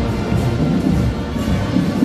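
Loud parade music dominated by heavy, booming drums, with a dense low rumble.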